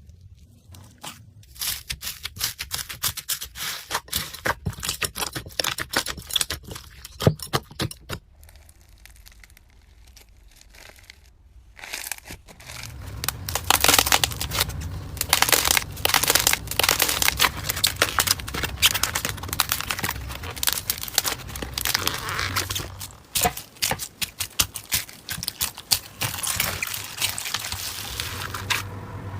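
Slime being pressed, poked and stretched by hand, making a run of small sticky crackles and pops. They come sparsely at first, then grow denser and louder a little before halfway through.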